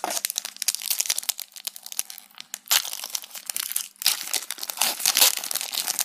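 Foil wrapper of a Pokémon TCG booster pack crinkling and tearing as it is opened by hand, a dense run of sharp crackles with brief lulls.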